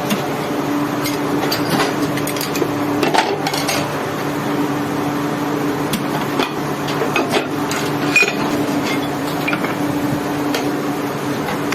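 Factory machinery running with a steady hum, over irregular clinks and knocks from hard parts and tools being handled in the rubber-moulding work.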